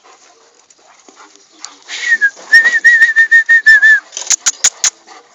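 A dog whining in a high-pitched string of short, wavering notes for about two seconds, followed by a run of sharp clicks at about four a second.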